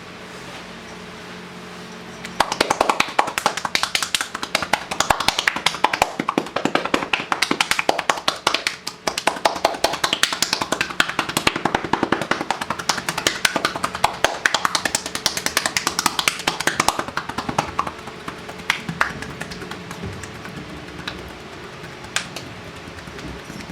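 Percussive back massage: the therapist's hands striking the client's back in a fast run of slaps, many a second, starting about two seconds in and thinning out to a few single slaps after about seventeen seconds.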